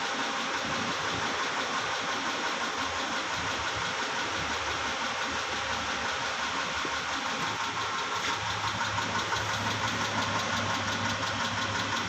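Mitsubishi 6G74 V6 gasoline engine running with a repetitive knock from inside the engine, a little louder from about eight seconds in. The mechanic suspects a stuck valve lifter.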